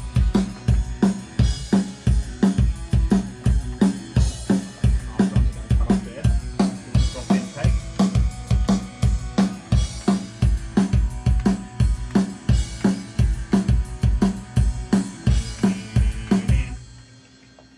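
Drum kit playing a steady rock beat: kick and a hard-hit power snare, with hi-hat and cymbals over the top. It stops about a second before the end, then starts again.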